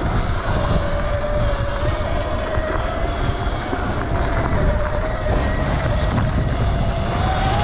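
Sur-Ron Light Bee electric dirt bike's motor whining steadily while riding, its pitch rising a little near the end as the bike speeds up, over a low rumble of wind on the microphone.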